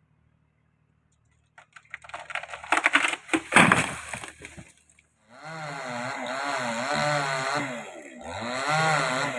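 Wood crackling and snapping, with one loud crack about three and a half seconds in, then a chainsaw running from about five seconds on, its engine speed wavering as it cuts.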